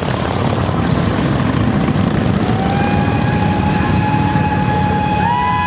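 Harley-Davidson V-twin motorcycle engines running as a steady stream of bikes rides past, a dense, low engine noise. A steady high tone comes in about halfway through, and a second one near the end.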